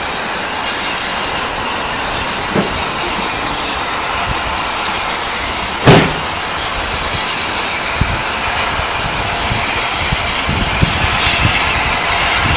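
Steam locomotive, the Southern Railway King Arthur class 4-6-0 No. 30777 Sir Lamiel, working along the line: a steady rush of exhaust and running-gear noise, with one loud sharp knock about six seconds in and low beats building in the second half.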